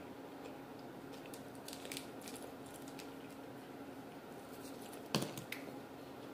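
Close-up eating sounds: chewing and small clicks and taps of a fork against a plastic sushi tray, with one sharper tap about five seconds in, over a steady low hum.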